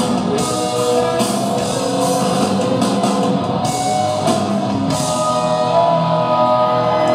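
Live hard rock band playing loudly: electric guitars, a drum kit with repeated cymbal crashes, and a singer's voice.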